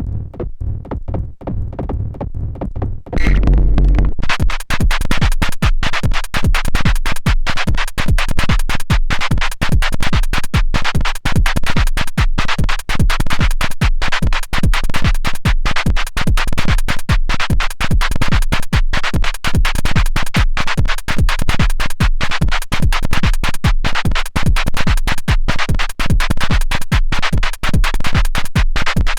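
Erica Synths Perkons HD-01 drum synthesizer playing an electronic drum pattern. It is quieter and sparser for the first three seconds, then the full pattern comes in loud, with fast, even hits over a deep bass.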